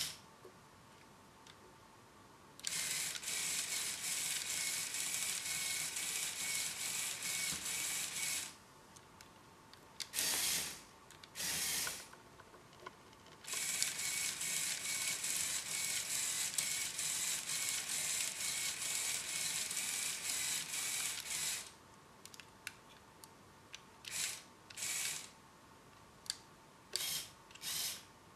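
LEGO Technic tracked vehicle's electric motors and gear trains running in bursts under remote control. Two long runs of several seconds each, then a string of short spurts, each with a fast clicking texture.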